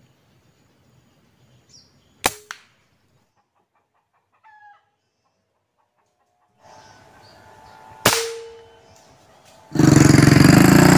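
Two air rifle shots about six seconds apart, each a sharp crack with a short ringing tail. Near the end a motorcycle engine starts up loud and keeps running.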